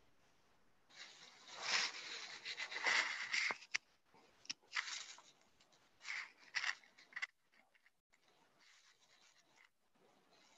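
Rustling and scraping close to a microphone, in irregular bursts over several seconds with a couple of sharp clicks in the middle.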